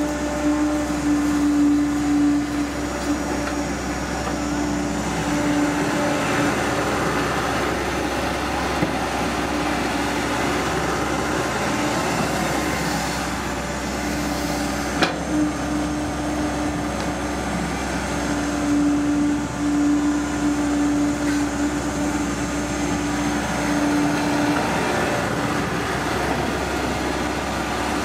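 Caterpillar E120B hydraulic excavator running under load while digging and loading soil: a steady engine and hydraulic drone with a strong humming tone that drops out now and then. A single sharp knock comes about halfway through.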